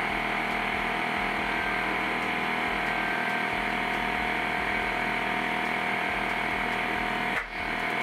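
Air compressor running steadily, feeding air through a chuck on the tire's valve stem to inflate it and seat the beads, with a brief break about seven seconds in.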